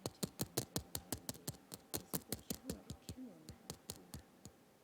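Typing on a computer keyboard: a quick, irregular run of key clicks, about five or six a second, that stops near the end.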